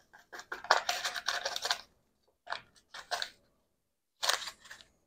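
Paper packet of instant pudding mix crinkling and rustling as it is emptied and shaken out over a mixing bowl, in several short bursts with brief pauses between them.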